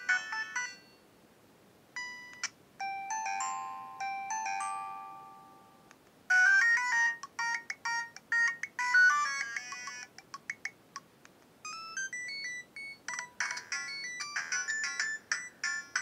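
Siemens A70 ringtones played one after another through a Samsung SGH-P910 phone's speaker. One tune ends about a second in. After a short gap comes a slower tune of long held electronic notes, then from about six seconds in a fast, busy melody with brief pauses.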